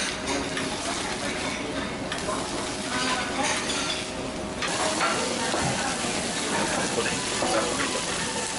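Runny monja-yaki batter with shredded cabbage sizzling on a hot teppan griddle, with stirring and scraping against the griddle. A little under five seconds in, this gives way to a steadier sizzle of bacon slices frying on the griddle.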